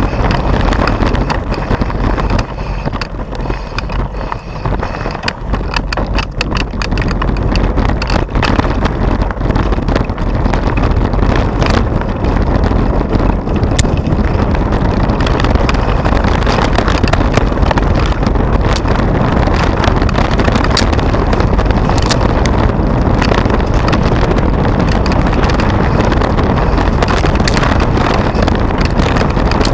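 Mountain bike rolling over a gravel and dirt trail, heard from a handlebar-mounted camera: a steady rumble of wind and tyre noise with frequent rattles and knocks from the bike over stones and bumps.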